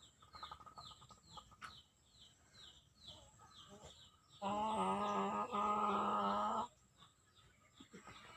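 Chicken making short, high, falling squeaks about three times a second, the sound taken for its snoring in sleep. About halfway through comes a loud, drawn-out call of about two seconds, then the faint squeaks resume.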